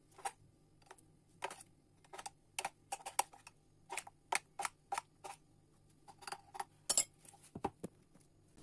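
Irregular light clicks and taps of hard plastic as a small food chopper's bowl is handled and its blade assembly lifted out, about twenty short knocks with uneven gaps.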